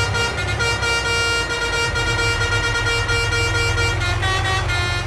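Electronic sound effect from a toy bus's sound module: a recorded engine hum under multi-note horn tones that shift in pitch several times.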